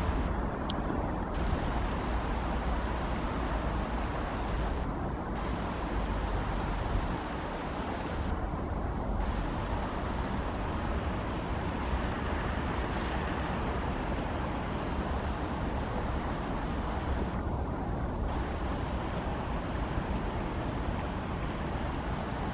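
Heavy rain falling steadily: an even, constant hiss with a low rumble underneath.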